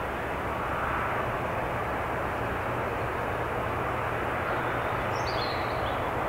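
Boeing 787-8 Dreamliner's jet engines on landing approach: a steady rush of engine noise with a low hum underneath. A brief high chirp sounds about five seconds in.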